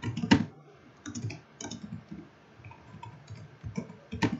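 Computer keyboard keys being typed in short irregular runs of clicks, with the loudest clicks right at the start and again near the end.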